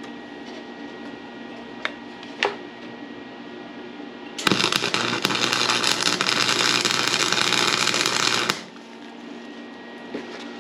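Harbor Freight welder's arc crackling steadily for about four seconds while laying a tack weld, starting and cutting off sharply. Two faint clicks come before it.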